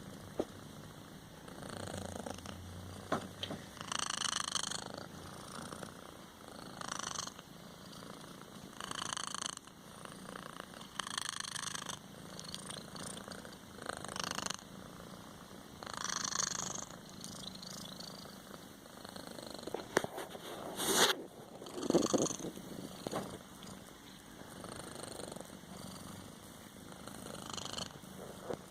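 A sleeping kitten snoring and purring, the sound swelling with each breath every two to three seconds. A sharp click about three-quarters of the way through is the loudest moment.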